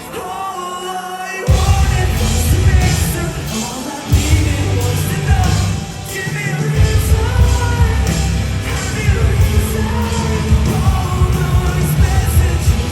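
Rock band playing live with a lead singer. Sung vocals over lighter backing open, then the full band with heavy bass and drums comes in about a second and a half in, the low end dropping out briefly near the middle.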